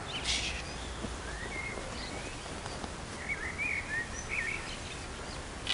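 Small birds singing in short warbling, chirping phrases over steady outdoor background noise, with a brief rustling hiss just after the start.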